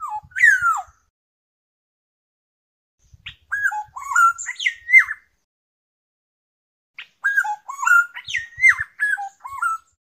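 Black-naped oriole calling: one down-slurred call near the start, then two phrases of fluting, up-and-down whistled notes, each about two seconds long.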